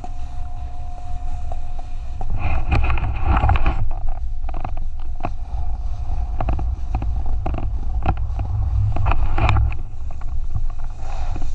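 Wind buffeting the microphone in a steady low rumble, with scattered clicks and louder bursts of scraping hiss about two to four seconds in and again near nine seconds.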